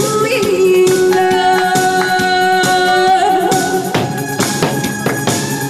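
Music: a melody of long held notes over a backing track with regular percussion hits. The texture changes about four seconds in.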